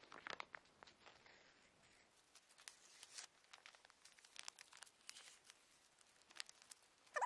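Faint crinkling and tearing of a small wrapper being handled, in short scattered rustles and clicks.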